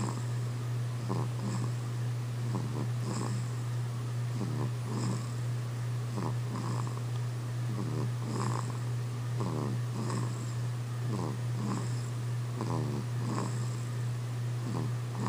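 A pet snoring in a steady rhythm, a rasping in-and-out breath about every one and a half seconds, over a steady low hum.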